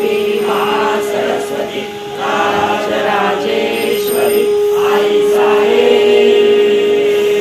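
A group of voices chanting together in unison, over one steady, unbroken droning note.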